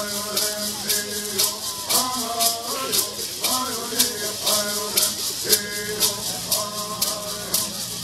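Young male singers singing a Mohave bird song together in unison. They keep time with shaken gourd rattles in a steady beat of about two strokes a second.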